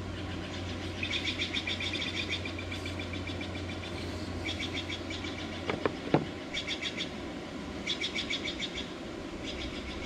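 A songbird singing a series of short, rapid trills, six phrases in all, over a steady low hum. Two sharp clicks come about six seconds in.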